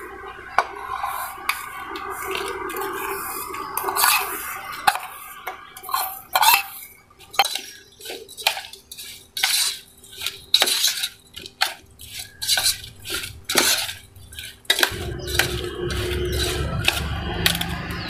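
Steel spoon stirring and scraping in stainless steel bowls, with irregular metal-on-metal clinks, as jaggery powder is mixed into oil and then into cut mango pickle pieces.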